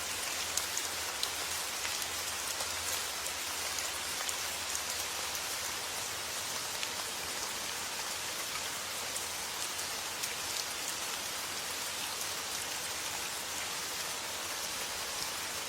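Steady rain falling, a dense even hiss with many individual drops ticking on a surface.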